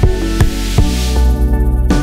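Background electronic music with a steady beat, with a hissing sweep that builds up and cuts off just before the end.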